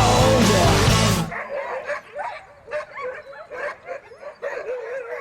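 A song ends abruptly about a second in, leaving a group of Greenland sled dogs yipping and whining, with a wavering howl toward the end.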